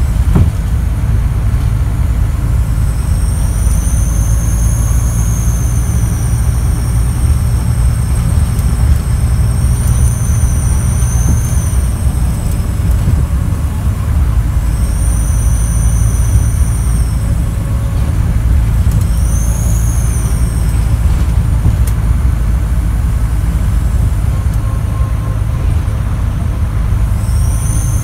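Scania DC9 9-litre inline-six diesel of a Scania N94UD double-decker bus running under way, heard from inside the bus, with a loud high whistle from a leaking turbocharger. The whistle swells and fades several times as the engine pulls and eases off.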